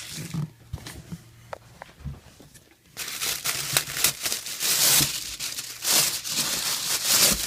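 A few light handling rustles, then about three seconds in loud, continuous crinkling and tearing of packaging as a wrapped item is unwrapped.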